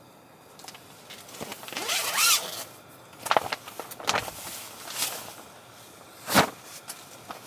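A zipper drawn in one long pull, rising in pitch, followed by a few short, sharp strokes, the loudest one near the end.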